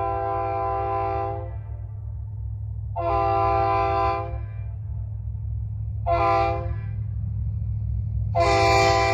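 Multi-chime locomotive air horn sounding a chord in a long–long–short–long pattern, the standard grade-crossing signal. The first blast ends about a second and a half in, a second follows about three seconds in, a short toot comes near the six-second mark, and the final long blast starts near the end. A steady low hum runs underneath.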